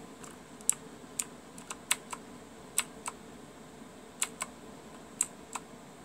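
Key presses on a Redragon Indrah mechanical keyboard with clicky Cherry MX Blue–clone switches: about a dozen separate sharp clicks at an uneven pace, some in quick pairs.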